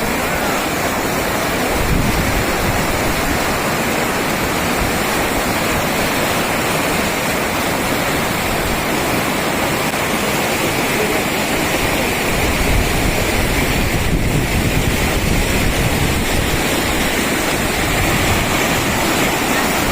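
Fast-flowing mountain stream of snowmelt rushing steadily.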